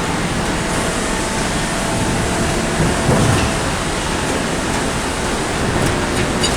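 Steady machine noise of factory machinery running, an even, unbroken din with faint humming tones and a short louder swell about three seconds in.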